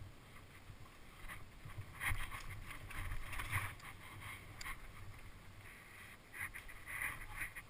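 Mountain bike riding fast down a dirt trail: tyres rolling over packed dirt and loose stones with the bike rattling, and a low rumble of wind on the microphone. Louder clatters come about two seconds in and again near the end.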